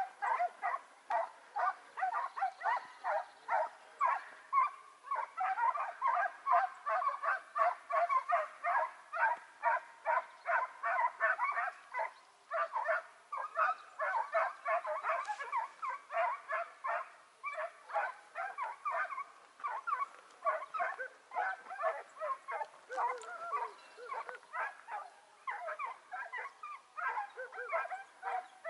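Several hare hounds giving tongue in rapid, overlapping yelps without a break: the pack in full cry on a hare's trail.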